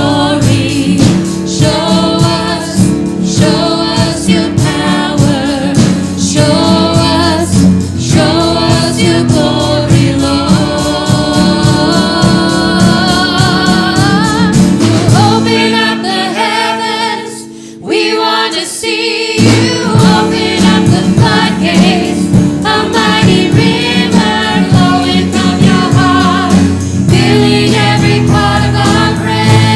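Choir singing a contemporary Christian worship song over band accompaniment, with a short break about two-thirds of the way through before the music comes back in.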